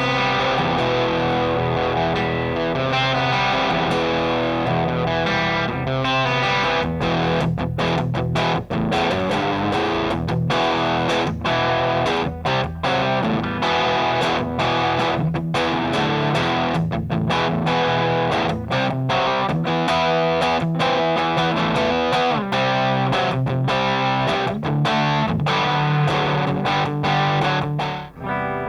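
Electric guitar played through a Rullywow Plexicruise, a Marshall-voiced distortion pedal cloned from the Plexidrive, giving a brown Marshall-style distortion. Chords ring steadily at first, then from about six seconds in the playing turns choppy, with many short stops between chords.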